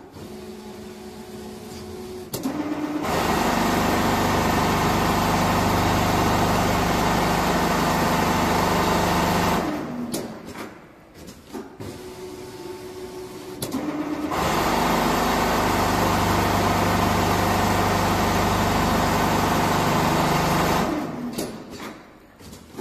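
Richpeace four-head CNC pattern sewing machine stitching fiber-filled jacket panels: two long stretches of steady, loud machine sewing, each about seven seconds, with quieter pauses between them that hold a low hum and a few clicks.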